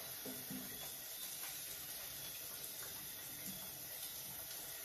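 Eggs frying in hot oil in a pot on a gas stove: a steady, faint sizzling hiss, with a few faint taps.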